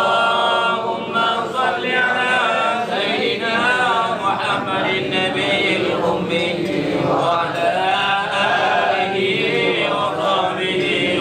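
A group of men chanting Arabic prayer together in unison, a tahlil (samadiyah) recitation, in long melodic phrases that rise and fall without a break.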